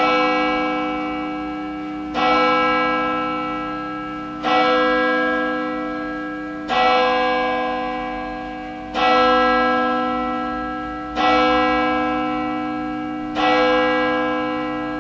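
A single church bell tolling slowly: seven strikes at the same pitch about two seconds apart, each ringing on and fading before the next.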